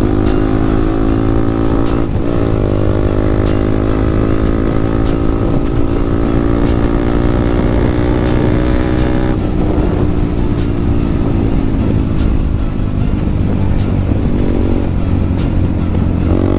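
Yamaha MT-15's 155 cc single-cylinder engine running under load through an aftermarket exhaust, its note climbing steadily as the bike accelerates. The pitch breaks and drops at gear changes about two seconds in and about nine seconds in, with another dip near the end.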